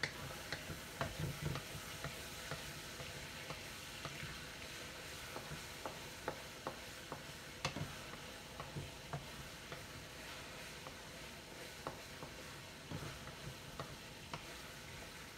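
Chicken cooking in a pan with water just added, sizzling steadily, with scattered sharp ticks throughout.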